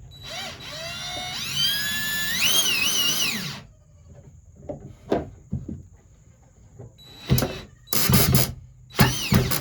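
A cordless drill runs for about three seconds, its whine climbing in pitch as it drives a screw into wood. A few sharp knocks follow, and near the end music comes in.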